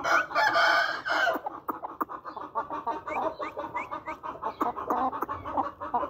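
Aseel rooster crowing once, loud, for about the first second and a half, followed by a steady run of short clucking calls from the chickens.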